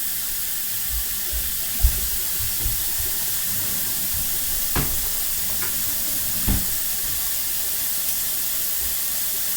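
Steady hiss with a few soft low knocks and about four sharp clicks, from someone eating microwaved cornstarch from a bowl with a spoon.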